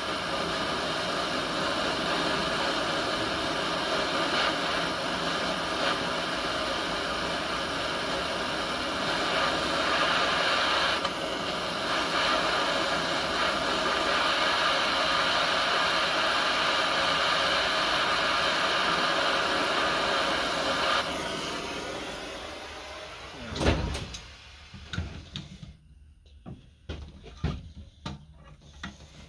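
Small handheld torch flame hissing steadily while heating a steel return spring. The hiss dies away about 21 seconds in, followed by a single knock and a few light clicks of handling.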